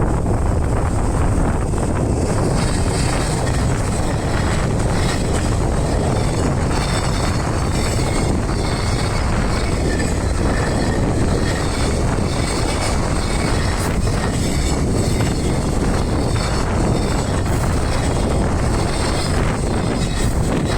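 A train passing: a loud, steady rolling noise, with high-pitched ringing tones joining about two seconds in and scattered clicks throughout.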